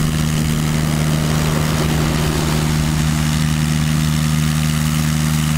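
Trailer-mounted hot-water pressure washer's 28 HP Kubota water-cooled diesel engine running at a steady speed, with an even hiss from the high-pressure spray over it.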